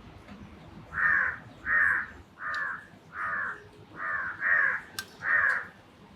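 Crow cawing seven times in a row, about one call every two-thirds of a second.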